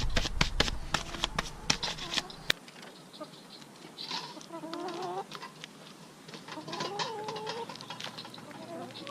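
A quick run of clicks and knocks for the first couple of seconds, then backyard hens calling with drawn-out calls that waver up and down in pitch.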